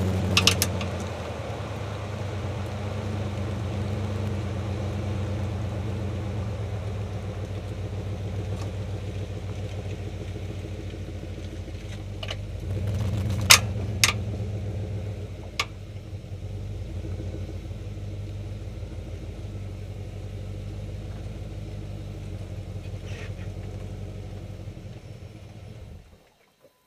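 Jeep WJ Grand Cherokee engine idling steadily, with a few sharp knocks about halfway through, two of them close together. The idle cuts off suddenly near the end.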